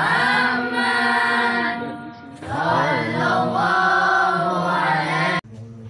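A group of boys singing together through a microphone in long held notes, in two phrases. The singing breaks off suddenly near the end.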